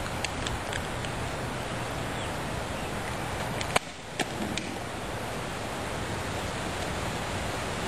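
Steady wind noise on the microphone outdoors, with a few light clicks in the first second and again around four seconds in, where the noise briefly dips.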